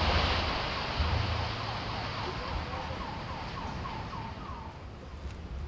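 Rumble of a reinforced-concrete high-rise collapsing in an explosive implosion, dying away as the debris settles. In the middle, a faint alarm-like tone repeats about three times a second for a couple of seconds.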